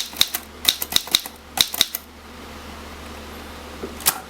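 Remington Portable No. 3 typewriter being typed on: about seven quick, sharp key strikes in the first two seconds, then a pause and a single strike near the end.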